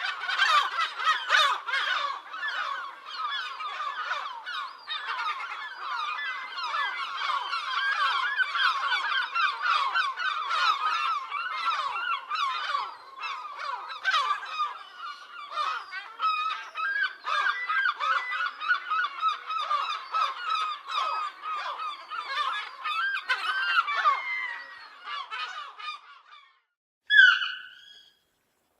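A large flock of birds calling, many short calls overlapping in a continuous chorus that fades out about 26 seconds in; near the end one louder separate call stands out on its own.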